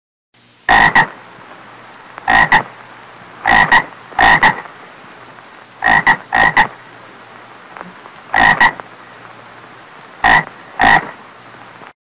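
A frog croaking: about nine short, loud croaks at uneven intervals, most of them quick doubled calls, over a steady faint hiss.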